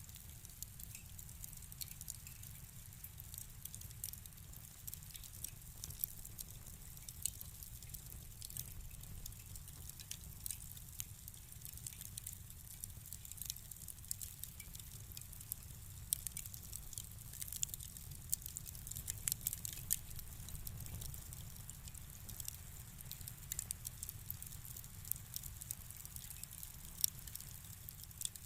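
Wood fire crackling in a fireplace: frequent small snaps and pops over a low steady rumble.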